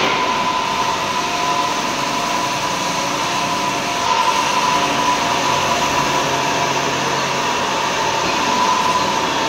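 A machine running steadily with an even, high-pitched whine over a constant rushing noise.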